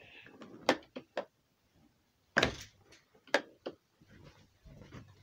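A handful of sharp knocks and clicks from objects being handled and set down, the loudest about two and a half seconds in.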